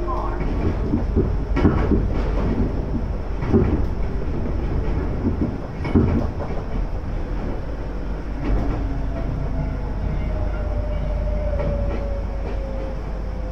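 Iga Railway electric train, an ex-Tokyu car, heard from inside the car as it runs along the line: a steady low rumble with wheels knocking over rail joints a few times in the first half. A faint tone slowly falls in pitch through the second half.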